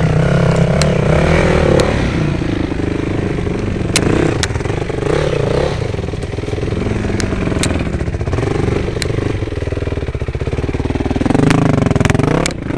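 Dirt bike engine revving up and down in repeated bursts as it is worked along a rough trail, loudest at the start and again near the end. Sharp clicks are scattered through.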